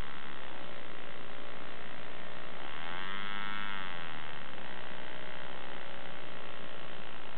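WOHM 10cc radial model diesel engine running at speed with a steady high buzz. About three seconds in its revs swell up and drop back again.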